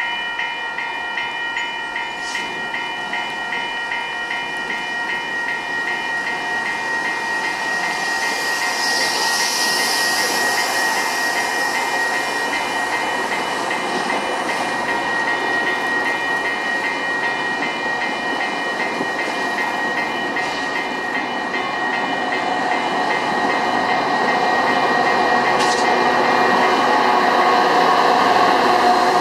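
Metra commuter train approaching the station, its rumble growing louder toward the end, with a rapidly repeating ringing tone that fades out after about twenty seconds. There is a hiss about nine seconds in.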